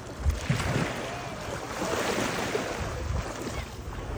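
Sea water rushing and splashing with wind buffeting the microphone, swelling to its loudest about halfway through, with a few low thumps in the first second.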